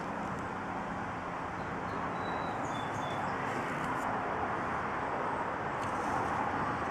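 Steady outdoor background noise, like distant traffic, with a couple of faint short high chirps two to three seconds in.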